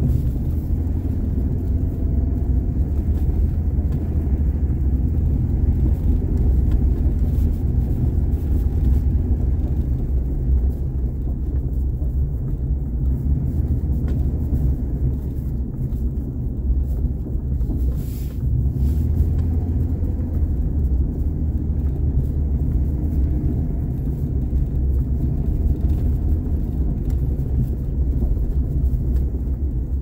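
Car driving: a steady low rumble of engine and tyre noise.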